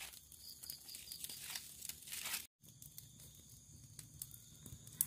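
Faint crackling and rustling of a small wood fire catching in a brick stove, kindled with burning plastic, with scattered soft clicks and a brief dropout about two and a half seconds in.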